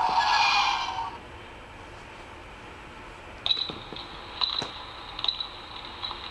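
Electronic sound effects played through a children's Star Wars sound book's small speaker. A loud one-second burst opens, and after a pause a steady high tone sets in, broken by sharp clicks and short chirps.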